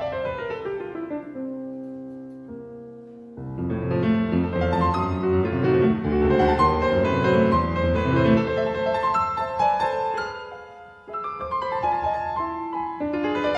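Piano playing classical music. A descending run dies away, then a louder passage with full chords and deep bass notes comes in about three seconds in. It softens briefly near eleven seconds before descending figures resume.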